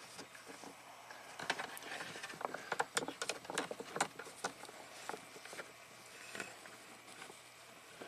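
Borescope probe being worked through the oxygen-sensor port into a catalytic converter, making a run of light clicks and scrapes that is busiest a second and a half to four and a half seconds in, with a few more later.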